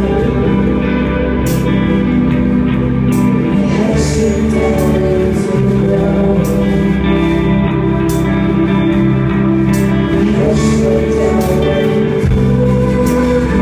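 Live indie rock music from a band: a Fender electric guitar rings out sustained chords over drums, with regular cymbal hits.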